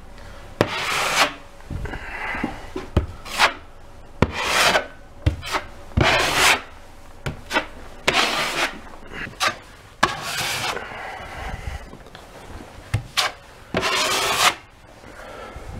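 Putty knife scraping across drywall as it spreads and smooths quick-setting joint compound into large holes. About ten separate strokes come at uneven intervals, with a few sharp clicks where the blade meets the wall.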